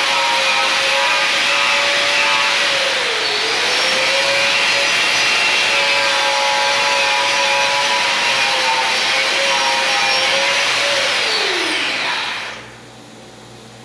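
Power sander running steadily on the body filler, its whine dipping briefly under load about three seconds in, then switched off and spinning down near the end.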